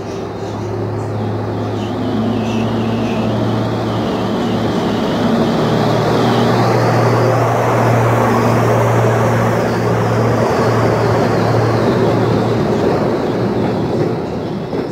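SM30 diesel shunting locomotive running with a steady low engine hum, growing louder as it draws close and passes about seven seconds in, then its passenger carriages rolling by.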